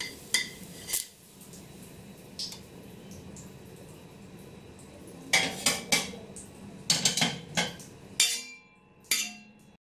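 Metal spatula and utensils clinking and scraping against a griddle: a few sharp clinks early, then a busier run of knocks and clatter in the second half, over a faint steady hiss.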